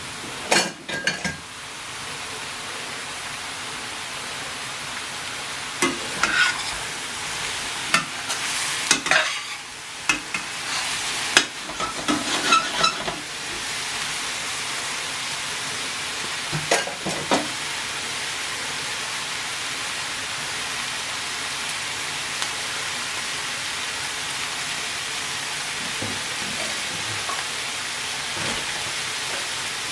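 Chicken sausages, peppers and onions sizzling steadily in a frying pan. A spatula stirs and scrapes through the pan with scattered clatters for several seconds partway in, then the sizzle carries on alone.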